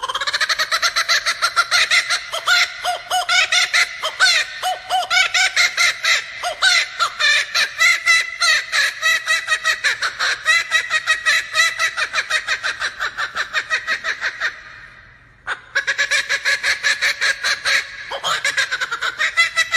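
Male laughing kookaburra giving its laughing call: a long, loud run of rapid rhythmic hoots, about four or five a second. It breaks off briefly about fifteen seconds in, then starts up again.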